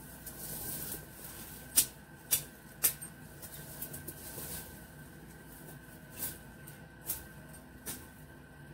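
Sharp clicks and cracks of woody shrub stems being cut as a worker clears among the bushes: three loud ones close together about two seconds in, then three softer ones spaced about a second apart later on. A faint steady high tone sits underneath.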